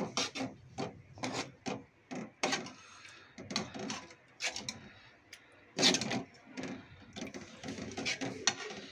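A metal spoon stirring a simmering egg curry in a steel pan, clinking and scraping against the pan in a string of irregular short knocks, one louder knock about six seconds in.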